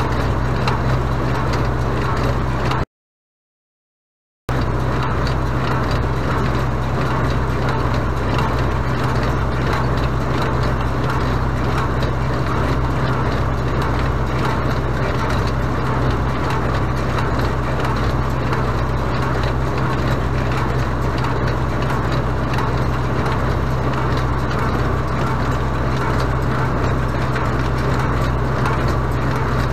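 Renault 656 tractor's diesel engine running steadily under load while driving a Renault 100 small square baler through its PTO shaft: a constant low drone with the baler's mechanical clatter over it. The sound cuts out completely for about a second and a half around three seconds in.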